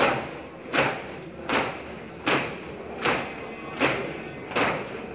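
A large squad of trainees exercising in unison, their movements landing together as seven sharp, evenly spaced thuds, one about every three-quarters of a second.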